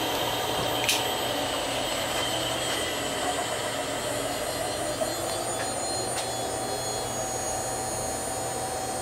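Bridgeport milling machine's one-horsepower three-phase motor running steadily from a newly wired variable-frequency drive: a constant whir with a steady high whine, and a couple of small clicks.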